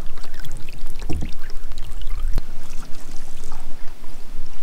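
Water splashing and trickling around a canoe, with two sharp knocks, one at the start and one about two and a half seconds in.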